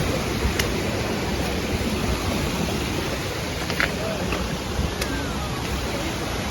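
Steady rushing noise with a heavy, uneven low rumble and a few faint clicks: wind buffeting the microphone.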